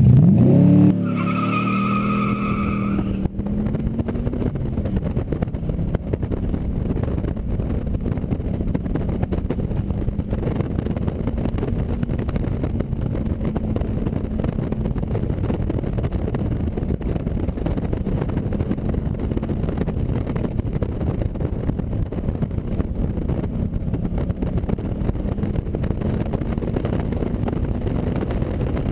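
AC Cobra Mk IV's V8 revving up hard, with a high wavering squeal for about two seconds near the start. It then runs steadily at high revs under full load through the climb.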